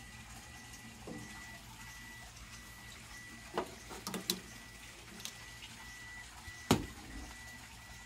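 Clicks and knocks of an air-conditioning charging hose coupler and oil-injector can being handled at the service port, a cluster about halfway through and one sharp knock, the loudest, near the end. Underneath are a steady low hum and a faint high whine that comes and goes.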